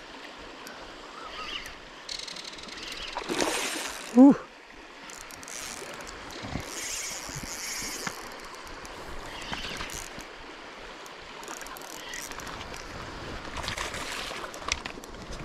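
A hooked smallmouth bass splashing at the surface of the water in several separate bursts as it fights the line. A man gives a short pitched exclamation about four seconds in.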